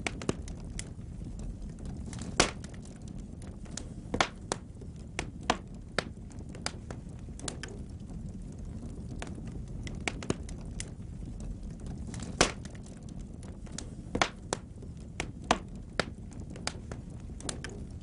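Wood logs burning in a fireplace: a steady low rumble of flame under irregular sharp crackles and pops, with two louder pops a couple of seconds in and again about twelve seconds in.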